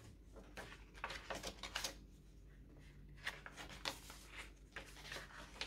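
Paper pages of a handmade junk journal being turned and handled: soft, irregular rustling and crinkling of paper.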